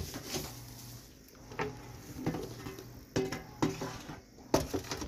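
Gourmia air fryer basket being handled: the plastic basket and its wire rack clatter in a run of knocks and rattles, with the sharpest knock about four and a half seconds in.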